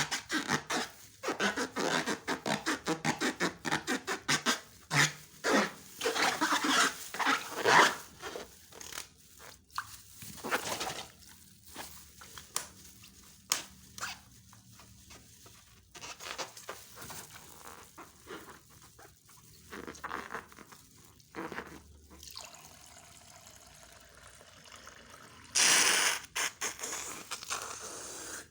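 Slime being squished and worked by hand: rapid strokes, about four a second, for the first eight seconds or so, then scattered sticky clicks, with one louder half-second squelch near the end.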